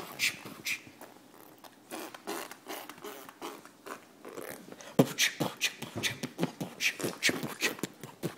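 Beatboxing: a rhythmic string of vocal percussion, with thumping kick sounds and hissy snare-like clicks. It starts sparse and settles into a steadier beat of about three hits a second about halfway through.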